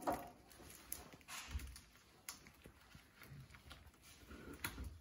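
Faint, scattered light taps and handling noise as a plastic-wrapped Stollen is opened on a wooden cutting board.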